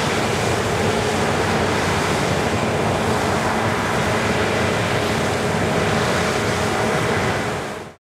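Combine harvester threshing rapeseed: a steady, dense rushing roar of machinery with a faint engine hum underneath, fading out at the end.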